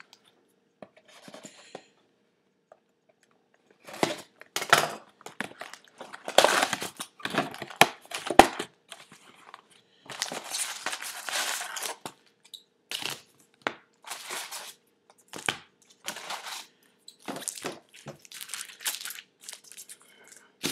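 Plastic and paper packaging of a sealed trading-card hobby box being torn open and crinkled in irregular rustling spells, starting a few seconds in. There is a sharp snap about eight seconds in.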